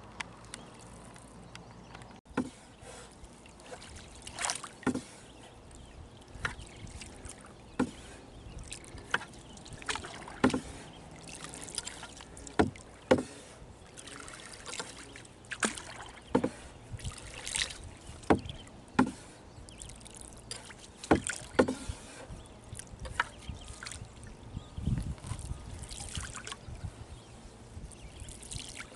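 Wooden otter tail canoe paddle taking stroke after stroke through calm water, with a short splash from the blade about once a second.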